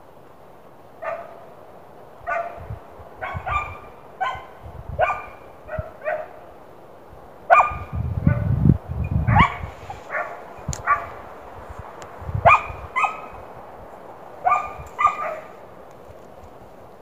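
Hunting hound giving voice, about twenty short baying barks in irregular runs, the sign of the dog trailing a hare on its scent.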